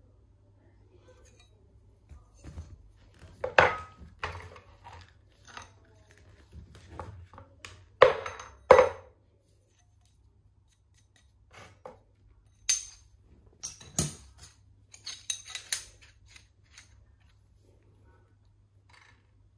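Brass sheet and metal hand tools being handled on a workbench: scattered clicks, taps and light metal clinks, with a louder pair of knocks about eight seconds in and a quick run of sharp clicks in the second half.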